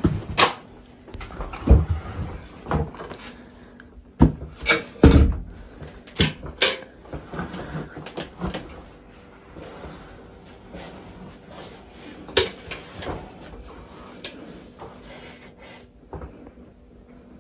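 A wooden floor hatch to a cellar being opened and a metal bucket handled: a series of sharp knocks, clunks and clatters, several close together around the middle and a few more later on.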